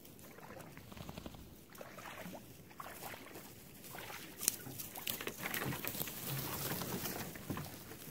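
Rustling and scraping of a canoe being hauled out of the lake through low shoreline brush, with many small crackles and knocks, getting louder from about halfway through.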